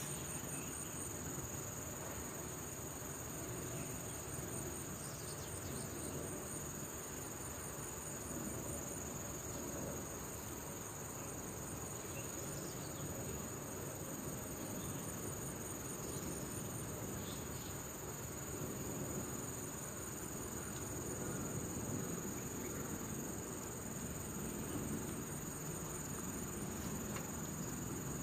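Steady, unbroken high-pitched chorus of insects trilling, over a low haze of outdoor background noise.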